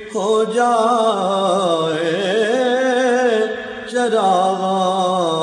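Man singing a naat unaccompanied in long, drawn-out melismatic phrases with a wavering, ornamented pitch; one phrase dips away just before the fourth second and a new one starts at once.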